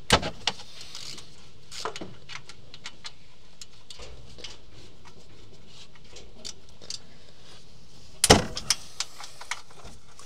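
Scattered metallic clinks and knocks of tools and engine parts being handled, with a sharp knock at the start and a louder cluster of clinks about eight seconds in.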